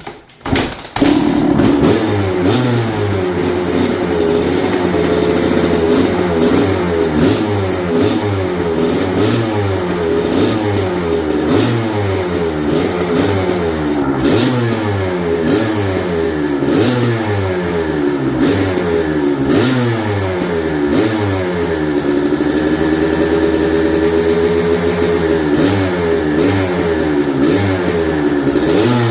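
Freshly rebuilt 1996 Suzuki RMX250's single-cylinder two-stroke engine catching about a second in and running with the choke on, the throttle blipped so the revs rise and fall over and over, holding steadier for a few seconds near the end before the blipping resumes.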